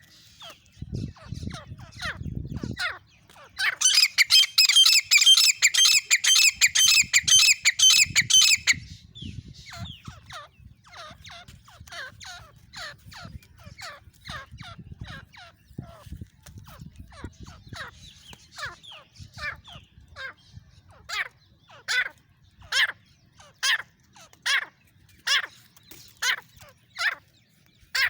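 A female grey francolin calling. About four seconds in comes a loud run of rapidly repeated high calls lasting around five seconds, followed by a long series of short, falling notes that grow louder and more evenly spaced toward the end.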